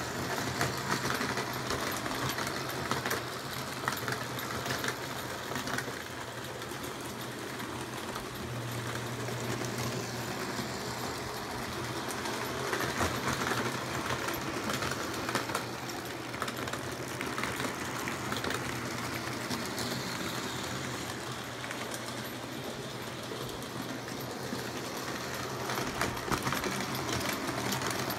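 Electric model trains running on their track layout: motors whirring and wheels clicking and rattling over the rails, over a steady low hum.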